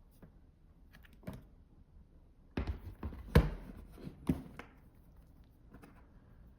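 Clicks and knocks of a magnetic charging cable and charger being handled and connected: a few faint ticks, then a cluster of sharp clicks about halfway through with the sharpest among them, and two smaller clicks after.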